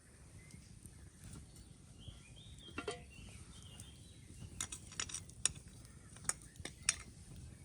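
A scatter of short, light clicks and knocks, more of them in the second half, over a faint background.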